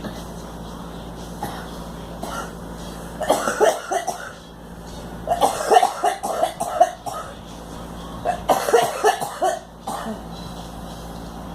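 A girl coughing in three fits of rapid coughs, each lasting about one to two seconds, with a few single coughs before and after.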